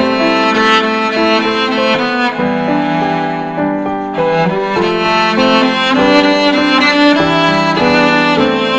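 Instrumental music: a violin playing a flowing melody over bowed strings, notes changing step by step.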